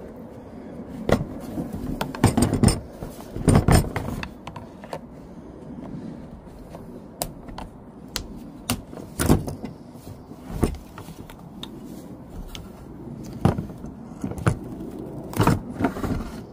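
Thin flat screwdriver prying and scraping at the plastic housing of an EVAP charcoal canister, with irregular sharp clicks and knocks of hard plastic as the vent valve's tabs are worked loose.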